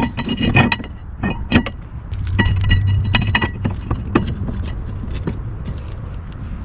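Irregular metallic clinks and taps of steel brake parts and tools being handled and fitted at a disc brake, some ringing briefly, over a low hum.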